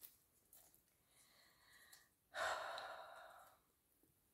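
A woman's quiet breathing, then an audible sigh about two and a half seconds in that starts suddenly and fades away over about a second.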